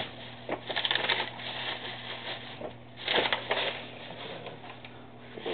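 Rustling and handling noises close to the microphone, in two bursts about a second in and about three seconds in, over a steady low hum.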